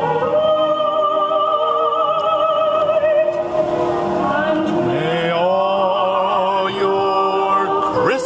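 Music with classical, operatic-style singing: long held notes with a wide vibrato, moving to new notes about halfway through.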